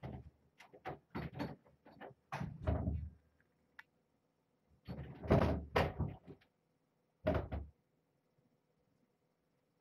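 A door being opened and shut as someone leaves the room: a quick run of clicks, knocks and rustles, then a louder, longer door sound about five seconds in and one more knock about two seconds later.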